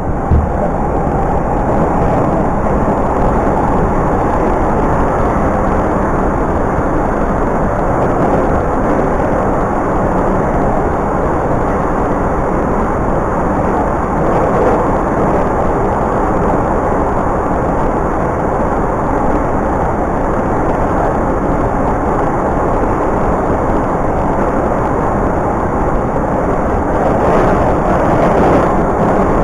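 Metro train running through a tunnel, heard from inside the carriage: a steady, loud rumble of wheels on rails, with a single thump right at the start.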